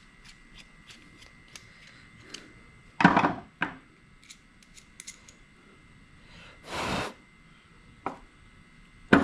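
Small carburetor parts being handled and set down on a workbench: scattered light metal clicks, with a louder clatter about three seconds in and again near the end, and a short hiss about seven seconds in.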